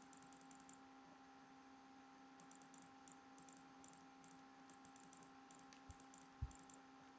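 Near silence: a faint steady hum with scattered faint clicks of computer keys and mouse, and two soft thumps near the end.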